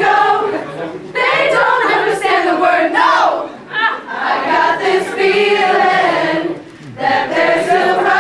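A group of people singing together loudly in unison, in three long phrases with brief breaks between them.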